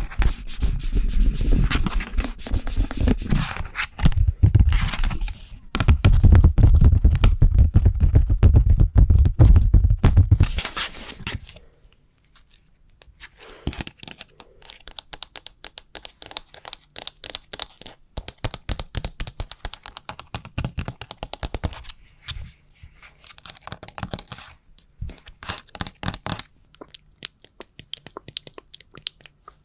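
Close-miked ASMR scratching and tapping on a small hand fan and a standee clip: loud rubbing for about the first ten seconds, then quick light tapping and clicking.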